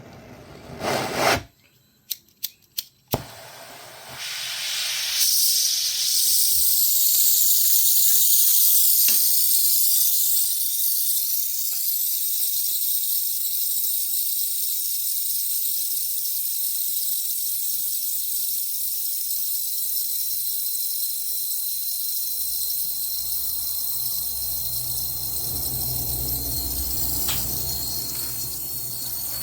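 A few sharp clicks, then the steady hiss of a gas brazing torch flame, which runs on while a Schrader valve is brazed onto the refrigeration line.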